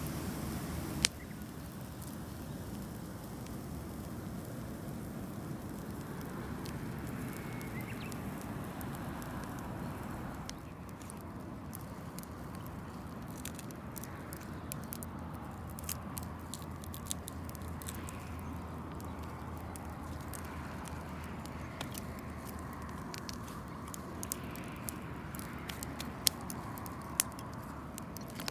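Campfire crackling, with scattered sharp pops over a steady low hiss; the pops come thicker in the second half.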